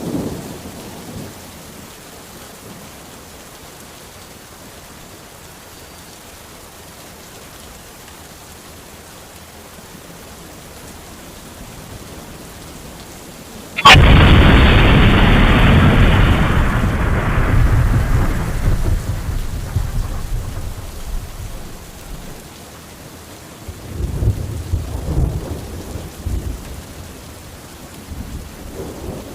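Thunderstorm: steady rain hiss, broken about halfway through by a sudden loud thunderclap that rolls and fades away over several seconds. A second, lower roll of thunder follows near the end.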